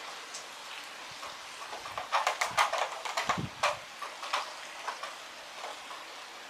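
Heavy rain falling with a steady hiss. From about two to four and a half seconds in comes the loudest part, a burst of sharp, irregular taps of drops striking a hard surface close by.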